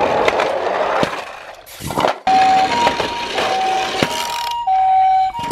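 Toy ambulance's sound unit playing the Japanese ambulance 'pi-po' siren: two steady tones, high and low, alternating about every half second, starting about two seconds in. Before it comes a loud rough noise that fades out.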